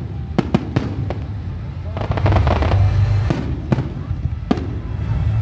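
Fireworks display: aerial shells going off in a series of sharp bangs, with a dense patch of crackling about two seconds in, over a steady low rumble.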